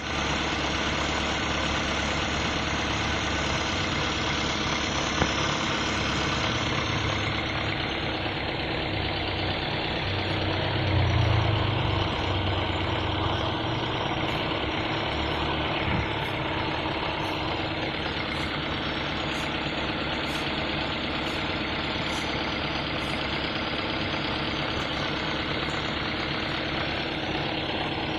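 A motor running steadily under a loud, even hiss, swelling briefly about eleven seconds in.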